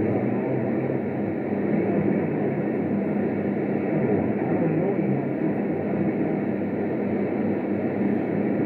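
AM static from a receiver tuned to the 27.025 MHz CB channel: a steady rushing hiss with a faint low hum underneath and no clear transmission.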